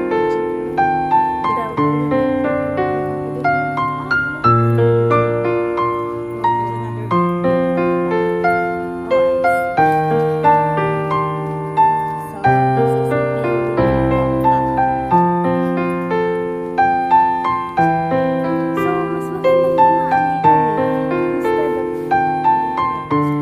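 Background piano music: a gentle, steady piece of repeated broken-chord notes over held bass notes.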